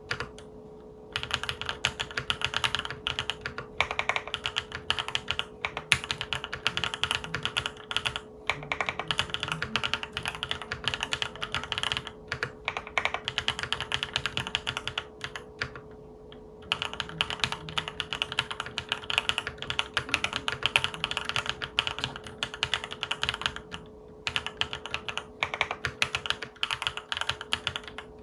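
Typing on a Monggeek M3 full-aluminium tenkeyless mechanical keyboard with Akko Cream Yellow Pro linear switches and Akko keycaps: a fast, dense run of key clacks broken by a few short pauses.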